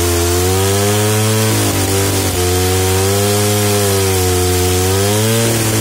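Old two-stroke petrol chainsaw running under load as its chain cuts through a tree trunk. The engine pitch sags briefly about two seconds in and again near the end, picking back up as the saw bites and frees in the wood.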